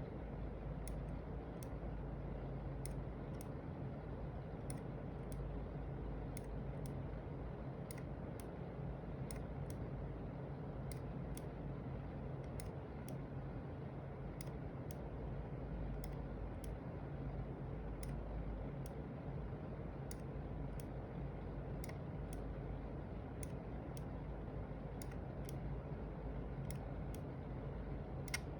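Logitech G703 gaming mouse buttons clicking, single sharp clicks about one or two a second at uneven spacing, sometimes in quick pairs, over a steady low hum.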